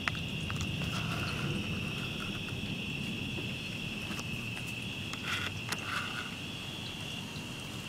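Steady, continuous chorus of crickets, a high shrill band, over a low rumbling background.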